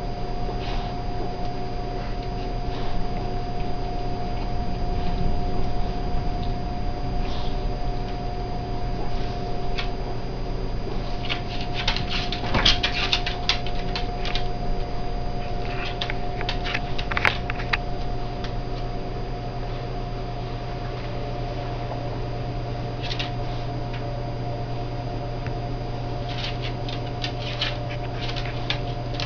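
A dog rummaging in a refrigerator: scattered clicks and rustling in several short spells over a steady hum.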